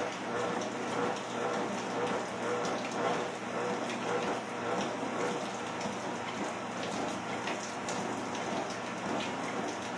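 Steady rain falling, with a treadmill running beneath it under walking steps.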